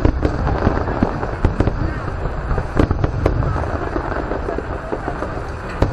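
Fireworks going off: a continuous low rumble of launches and bursts, with many sharp cracks and pops at irregular intervals.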